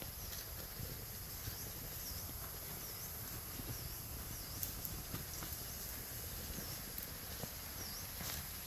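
Forest ambience: a bird repeats a short, high, dipping call about once a second, with scattered faint clicks and a low rumble underneath.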